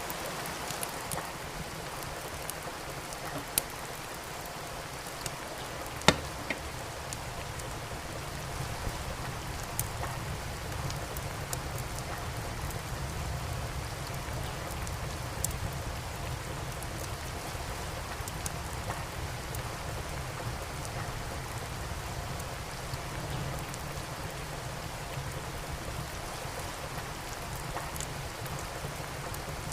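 Steady rain falling, with a wood fire crackling over it in scattered sharp pops, the loudest about six seconds in.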